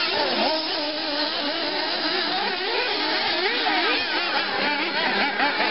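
Several 1:8 nitro RC buggies' small two-stroke glow engines running together, their overlapping buzzing pitches rising and falling as the cars accelerate and brake around the dirt track.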